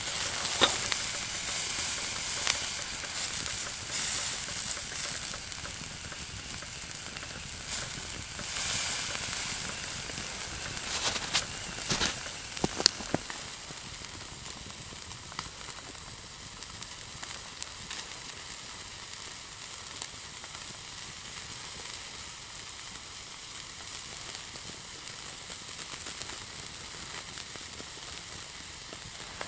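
Beef steak sizzling on a steel grill grate over a wood campfire. The sizzle is louder for the first several seconds, then settles to a steadier, quieter hiss. A few sharp clicks come about twelve seconds in.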